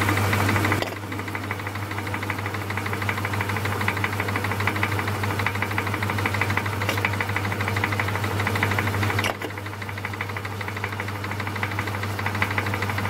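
Myford lathe running steadily: a constant motor hum with a fast, even whirr from the drive, louder in the first second while the parting tool cuts a small steel stud.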